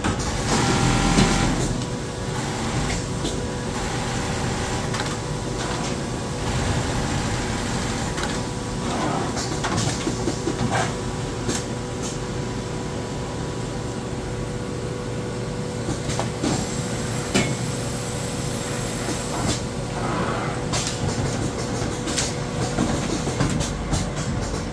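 Firtina automatic laser pocket-slitting and zipper-setting sewing machine running: a steady hum with intermittent clicks and short hisses, louder for a moment about a second in.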